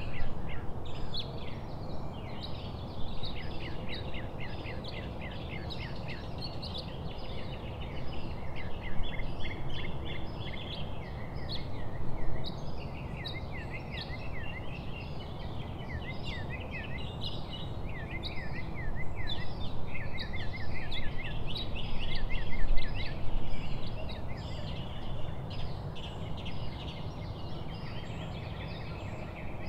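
Small birds chirping and chattering in quick, repeated short notes, over steady low background noise.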